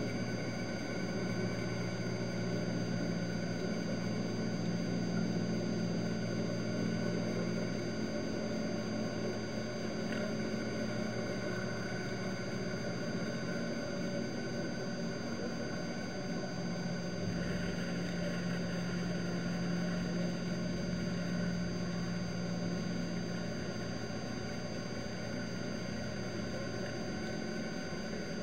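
Steady low drone of a boat engine heard through the water, growing stronger twice and easing off between, over a constant underwater hiss.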